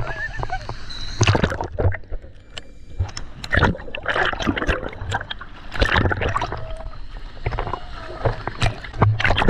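Choppy seawater sloshing and splashing around the camera at the surface, with gurgling and irregular crackling clicks as it dips under and comes back up.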